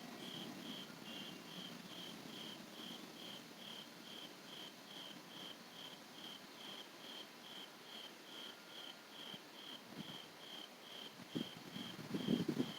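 A cricket chirping steadily in a regular high pulse, about three chirps a second. A few low thumps come near the end.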